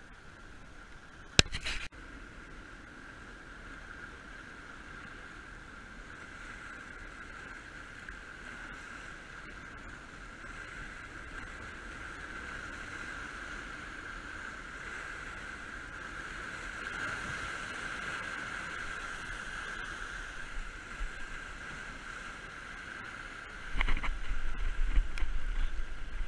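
Waves washing against jetty rocks and wind, picked up by a GoPro, as a steady rushing background. A sharp knock comes about a second and a half in, and loud low rumbling on the microphone sets in near the end.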